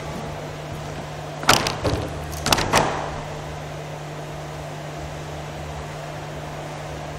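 Footsteps and knocks close to a camera resting on a gym floor: a sharp knock about one and a half seconds in and a short cluster of knocks about a second later, over a steady low hum.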